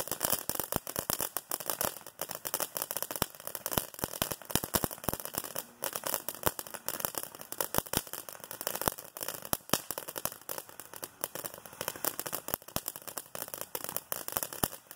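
Dominator Fireworks 'Dante's Peak' consumer fountain spraying sparks, with dense, irregular crackling made of many sharp pops a second.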